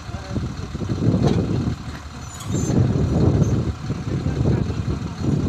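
Combine harvester running, a low mechanical rumble that swells and dips.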